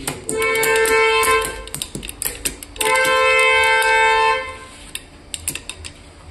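Two long held pitched tones, each about a second and a half, the second a little longer, over many sharp clicks and taps.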